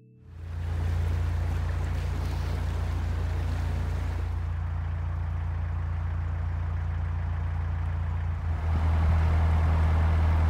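Narrowboat's engine running steadily while cruising, a low even chug. About eight and a half seconds in it grows louder, with a rushing noise added.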